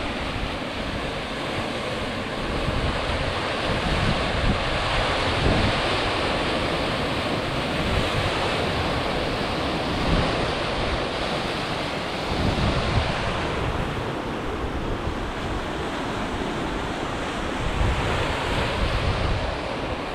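Sea surf washing steadily on the shore, with wind buffeting the microphone in low, uneven gusts.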